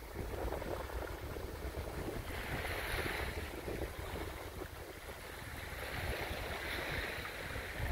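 Wind rumbling on the microphone over small lagoon wavelets lapping on a sand beach, with a soft hiss that swells twice, about two and a half and six seconds in.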